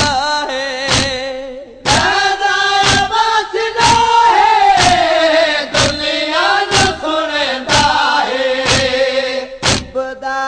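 Men's voices singing a nauha, a Shia lament, with a chorus joining the lead. It is kept in time by sharp chest-beating (matam) thumps about once a second.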